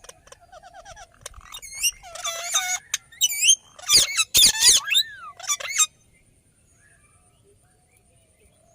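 Indian ringneck parakeet calling: clicks and short quick trills, then from about two seconds in a run of loud, shrill screeches that sweep up and down in pitch, ending about six seconds in.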